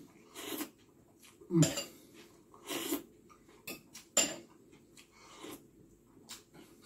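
Spoon clinking against a soup bowl while eating soup, about seven separate short clinks and scrapes spread across the few seconds.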